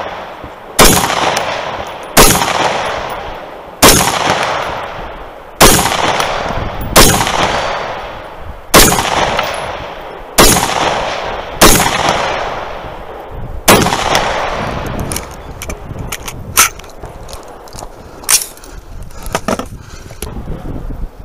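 Scoped rifle firing nine aimed shots, one about every one and a half to two seconds, each followed by a long fading echo. After the string, a few fainter sharp cracks.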